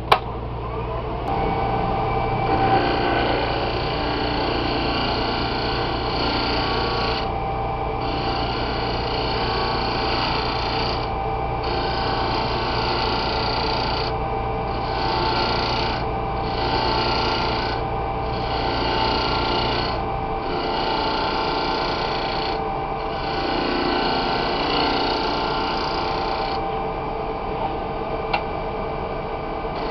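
A hand-held turning tool cutting and scraping a spinning wooden tobacco pipe bowl on a wood lathe, in repeated passes of a second or two with short breaks. The lathe runs with a steady hum and whine underneath.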